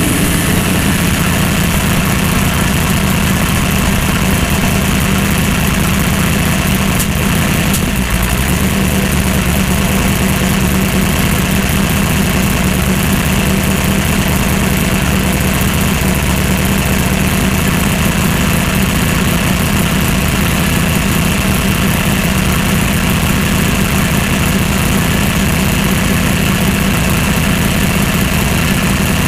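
Engine of a twin-turbocharged 2500 hp drag-racing Mustang idling steadily, heard from inside the cockpit.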